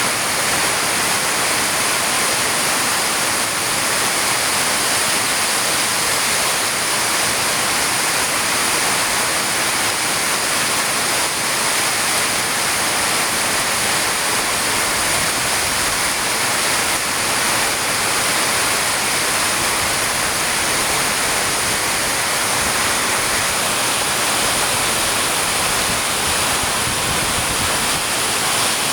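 Heavy rain falling as a steady, even hiss, with no separate drops standing out.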